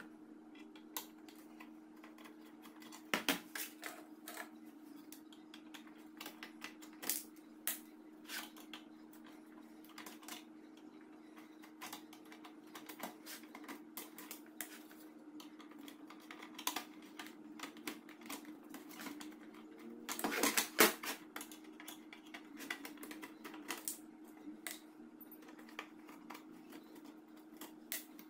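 Scattered light clicks and knocks of screws being taken out of a metal inverter case and dropped one by one into a small glass dish, with a louder burst of clatter about two-thirds of the way through, over a steady low hum.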